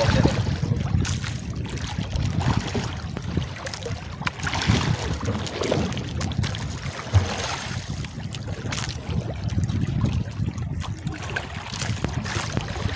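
Wind buffeting the microphone over sea water lapping and slapping against a small boat's hull, with a few sharp slaps scattered through.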